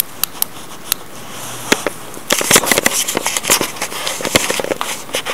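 Footsteps crunching over grit and stone debris on a floor: a few sharp separate crunches at first, then a dense run of crackling steps from about two seconds in.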